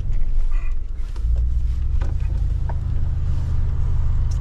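Mercedes-AMG G63's twin-turbo V8 engine pulling under throttle, a deep steady drone that gets louder about a second in.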